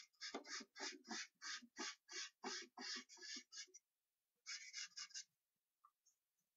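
Charcoal scratching on paper in quick back-and-forth shading strokes, about three a second, pressed on hard. A run of about a dozen strokes stops after three and a half seconds, and a short burst of four more follows about a second later.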